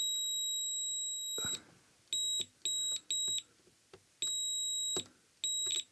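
Multimeter continuity beeper sounding a steady high-pitched tone in on-off beeps: one long beep of about a second and a half, three short beeps, a longer one, then another short one, each as the probes bridge connected points. Here the beeps show pins and vias connected to VCC that should not be, the sign of VCC shorted to ground on the board.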